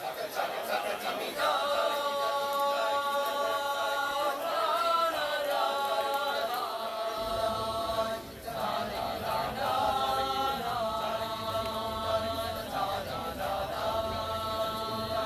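High school choir, mostly young men's voices, singing a cappella in held chords that change every few seconds, with a short break for breath about eight seconds in.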